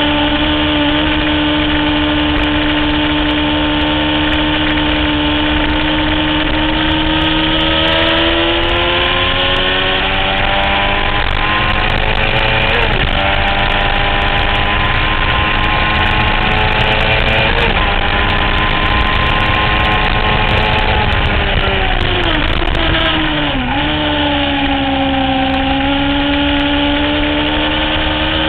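Honda CBR600 F4i sportbike's inline-four engine at high revs on track, heard from onboard with wind rush. The engine note holds steady, climbs, dips briefly twice, then falls sharply a little after twenty seconds in before climbing again.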